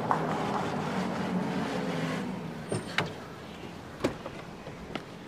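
A car running as it pulls up and stops, its steady hum fading about two seconds in, followed by a few sharp clicks as the car door is unlatched and swung open.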